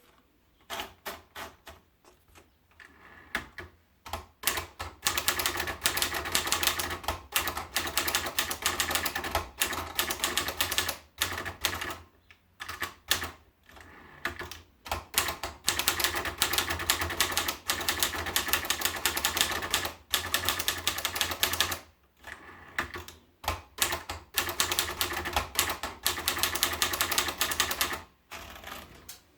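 Olivetti Lettera 22 portable manual typewriter being typed on: runs of rapid, clacking keystrokes lasting several seconds, broken by short pauses, with a few slower, sparser strokes near the start.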